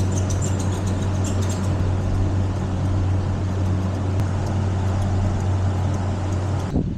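Electric dog grooming clippers running with a steady hum while trimming a dog's head. The hum stops abruptly near the end.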